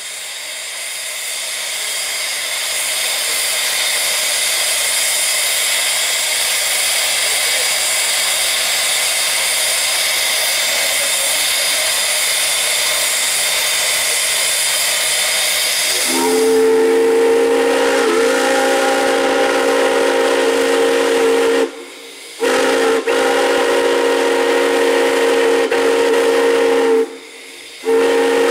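Steam hissing, swelling over the first few seconds and holding steady; about halfway through a multi-note chime steam whistle comes in, sounding in long held blasts with two short breaks near the end.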